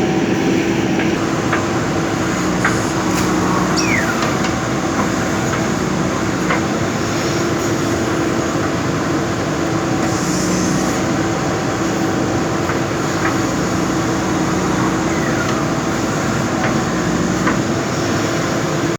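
JCB backhoe loader's diesel engine running steadily, with a few short falling squeaks and light clinks from the working machine.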